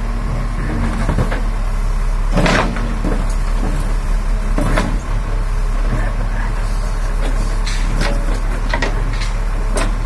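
JCB 3DX backhoe loader's diesel engine running steadily as the backhoe digs. A few sharp knocks and scrapes of the bucket against rocky soil come through, the loudest about two and a half seconds in.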